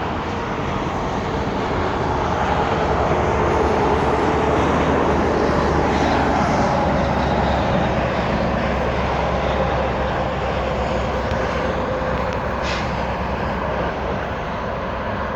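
Drone of a passing vehicle's engine, swelling over the first few seconds and then slowly fading, with a faint hum whose pitch slides slowly downward.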